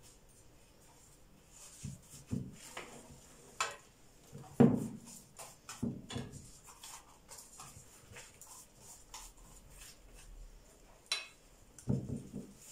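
Thin phyllo pastry sheets rustling and being pressed down as they are layered in a paper-lined tray, with a brush dabbed between the layers and scattered soft knocks; the loudest knock comes about four and a half seconds in.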